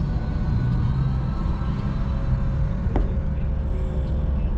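Steady low rumble of an engine running nearby, with a faint steady hum above it and a single sharp click about three seconds in.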